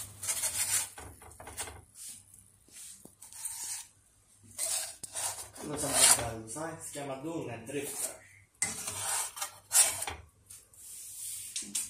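Spatula scraping and rubbing over a stone-coated nonstick frying pan as eggs fried in heart-shaped sausage rings are pried loose and lifted out, in a run of uneven scrapes.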